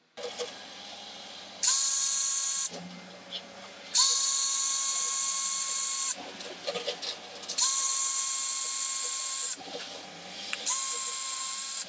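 Cordless drill spinning a 3/8-inch Forstner bit into a tupelo-wood lure body to bore the eye sockets, in four short runs of one to two seconds each: a steady motor whine over a hiss of cutting wood. Light clicks and handling between the runs.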